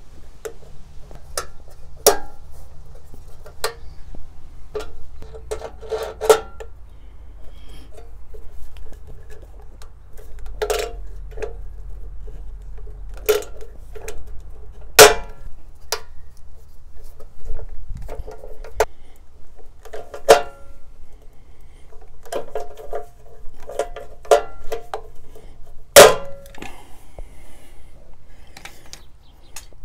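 Hand pop-rivet tool squeezed over and over, clicking as blind rivets fasten a metal data plate to a sheet-metal tool box. Two sharp snaps, about halfway through and near the end, are rivet mandrels breaking off.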